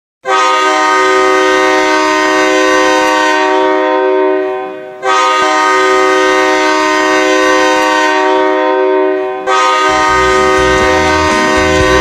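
Hockey goal horn sounding three long blasts, each a chord of several steady tones. Music with a heavy beat comes in under the third blast.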